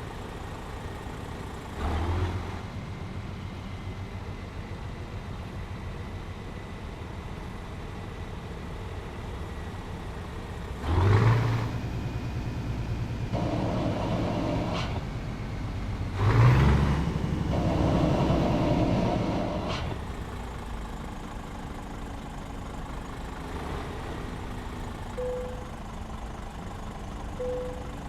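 Scania S 500 truck's diesel engine with a straight-through exhaust idling, revved three times: a short blip about 2 s in, then two longer revs about 11 s and 16 s in, each held a few seconds before dropping back to idle. Two short beeps near the end.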